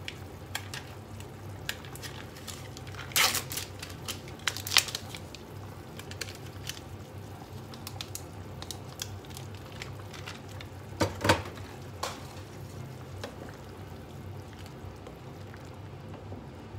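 Blocks of Japanese curry roux being snapped apart by hand over a pot of simmering stock. There are scattered clicks and a few sharp cracks and crunches, loudest about three seconds in and again around eleven seconds, over a steady low hum.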